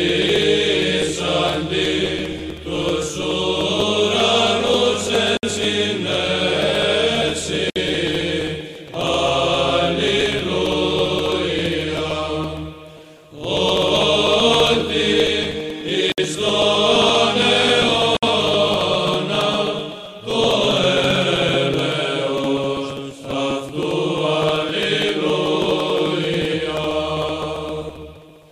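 Background music of chanted singing, in long phrases with short pauses between them, over a low held drone.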